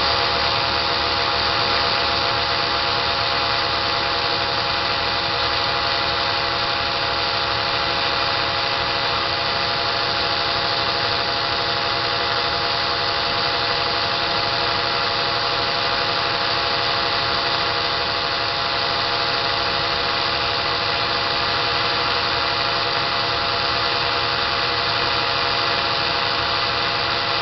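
Makita cordless drill running steadily, spinning a magnetic CD-drive hub that winds thread onto a steel sewing-awl bobbin.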